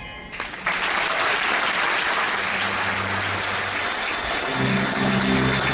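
Theatre audience applauding, breaking out about a second in. Near the end, held low music notes come in under the applause.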